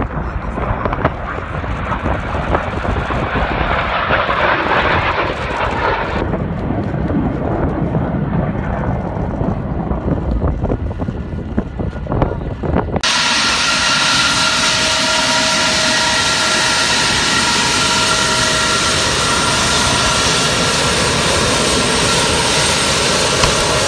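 Jet noise of a Tupolev Tu-160 bomber on its landing roll, rough with wind buffeting the microphone. After an abrupt cut about 13 seconds in comes the steady, louder whine of its four Kuznetsov NK-32 turbofans as it taxis close by, with several steady tones in it.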